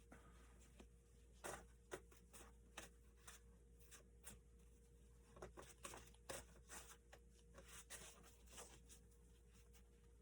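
Near silence, with faint irregular clicks and light taps of tarot cards being handled and laid down, over a faint steady hum.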